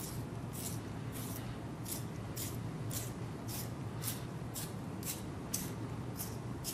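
Pencil being twisted in a small manual (non-electric) pencil sharpener, the blade shaving the wood and lead in short, even scrapes about twice a second.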